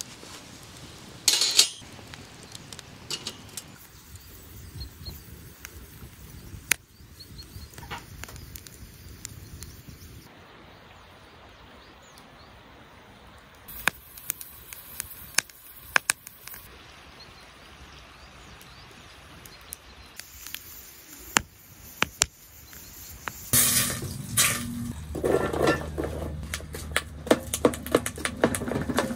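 Scattered metal clinks and knocks of a wire grill grate and a steel kettle being handled on a folding camp fire pit. Near the end comes a louder, busier stretch of a spoon clinking and scraping in a steel pot of chopped vegetables on a small wood stove.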